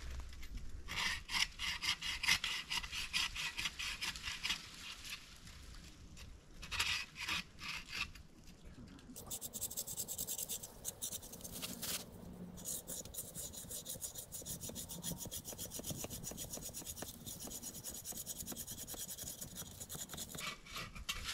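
Hand saw cutting through a thin sapling trunk in rapid, evenly repeated back-and-forth strokes, with a few short pauses.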